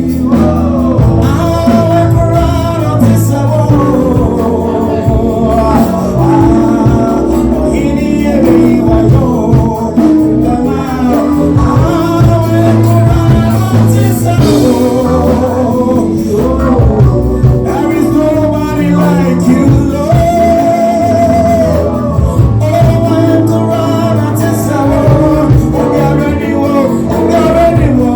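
Gospel music: a singing voice with a wavering vibrato over a band with a steady bass line.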